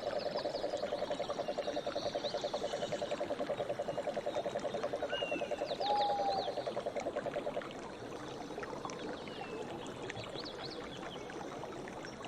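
Forest ambience: a rapid, low pulsing trill, typical of a calling frog, that stops about seven and a half seconds in, with scattered high bird chirps throughout.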